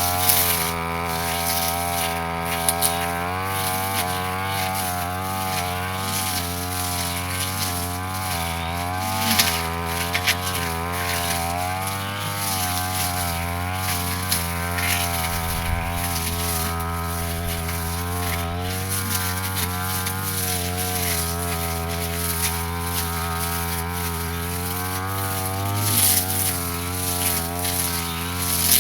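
Brush cutter's small engine running continuously while cutting grass, its pitch wavering up and down as the throttle and load change, with a few sharp ticks.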